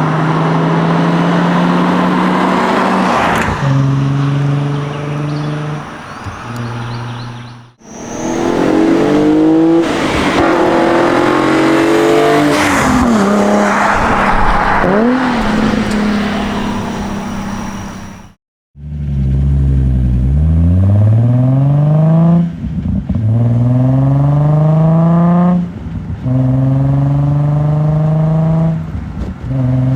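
Nissan 350Z's V6 through a cat-back exhaust, heard in three short driving clips. The first holds steady running with stepped pitch changes and the second rising and falling revs. In the last, the engine accelerates through the gears, its pitch climbing for about three seconds before each upshift drops it.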